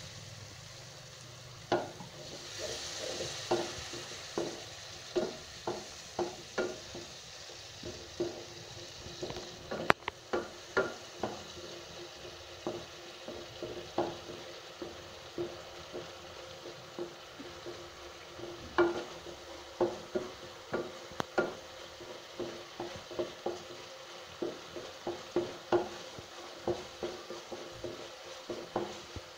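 Wooden spatula stirring and knocking against a metal pot, a knock or scrape about every half second, while onions, green chilies and spice paste fry in oil with a quiet, steady sizzle.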